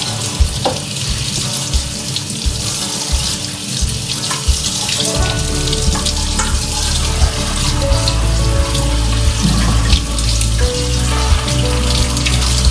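Kitchen tap running into a sink as refrigerator trays are washed, with light knocks and clatter of the trays against the sink.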